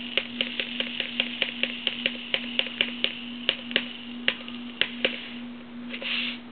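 Sand being poured into a ping pong ball shell: a quick run of light clicks and taps, about four a second, then a short hiss of running sand about six seconds in, over a steady low hum.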